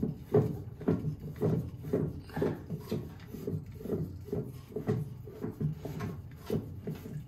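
Hand gripping and twisting a spin-on fuel/water separator filter canister to unscrew it, with short rubbing, scraping strokes about twice a second.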